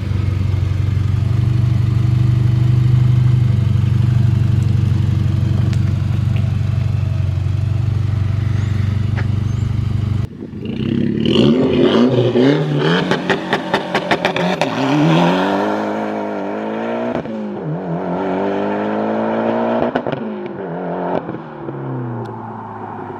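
Mitsubishi Lancer Evolution X turbocharged four-cylinder with a Borla cat-back exhaust: a steady low exhaust drone for about ten seconds, then the car accelerating hard, its pitch climbing and dropping back several times through gear changes, with a rapid crackle early in the run.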